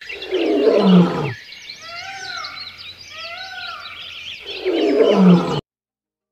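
Wild-animal soundscape: a deep roar, then birds chirping with a clear two-note call heard twice, then a second deep roar that cuts off suddenly.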